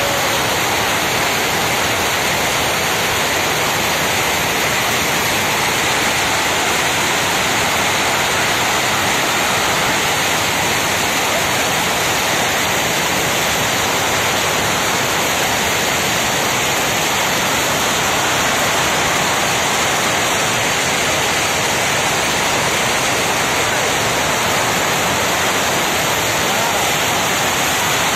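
Loud, steady din of jute mill machinery running, with yarn winding frames and other machines merging into one even, unbroken noise.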